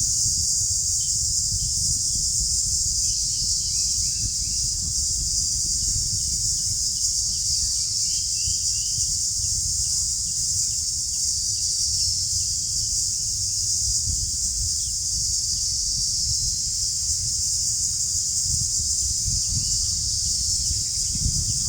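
Steady high-pitched chorus of insects that does not let up, over a low rumble, with a few faint short chirps here and there.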